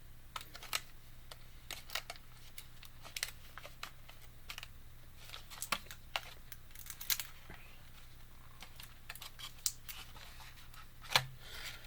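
Irregular small clicks and crinkles of plastic and cardboard toy packaging being handled as an action figure is worked out of its box, with one sharper click near the end.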